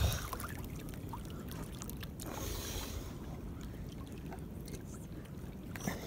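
Small waves lapping and trickling against a kayak hull at the waterline, with a short splashier patch a little over two seconds in.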